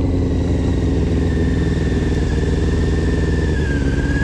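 Motorcycle engine running at low, steady revs as the bike rolls slowly, with no revving, and a thin steady whine above it that dips slightly near the end.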